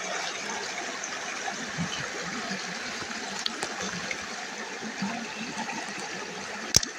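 Shallow creek water trickling and burbling steadily over streambed rocks. A single sharp knock comes near the end.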